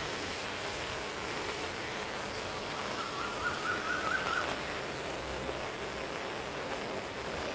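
Steady hiss of rain falling on foliage and wet ground. About three seconds in, a wavering high-pitched buzz lasts for about a second and a half.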